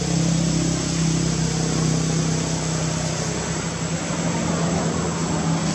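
A motor vehicle engine idling steadily, a constant low hum over an even hiss.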